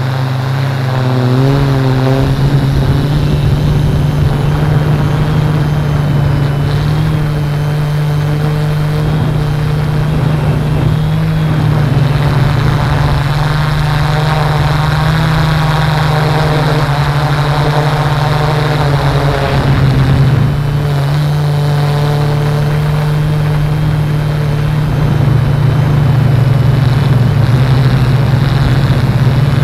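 Camera drone's motors and propellers humming at a steady pitch, with a rough low rumble beneath. The hum wavers briefly about two-thirds of the way through and grows a little louder near the end.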